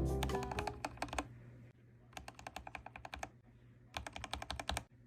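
Typing on a mechanical keyboard: three bursts of rapid key clicks with short pauses between. Piano music fades out under the first burst.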